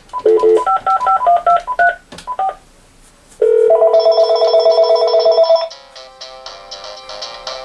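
A quick run of touch-tone (DTMF) dialing beeps. About three and a half seconds in, a Panasonic KX-TG6521 DECT cordless phone starts ringing: a loud pulsing ring for about two seconds, then a quieter melodic ringtone that keeps going.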